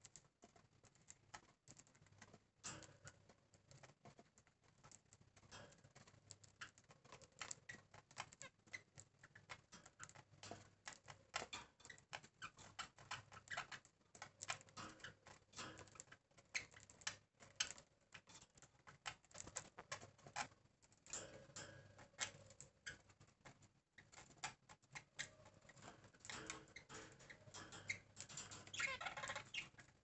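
Faint, busy ticking and clicking with soft chirps from a caged zebra finch and budgerigar, growing busier near the end.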